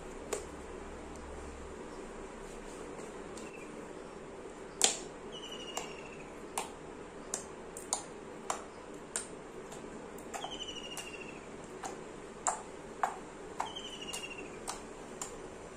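Sand slime being pressed flat and poked with a fingertip on a hard floor, giving about a dozen sharp pops and clicks at irregular intervals, the loudest about five seconds in.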